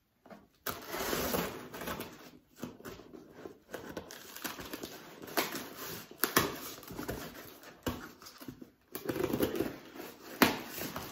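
Inner packaging of a parcel being unwrapped by hand: uneven rustling and crinkling of the wrapping, broken by several sharp clicks and knocks, the loudest near the end.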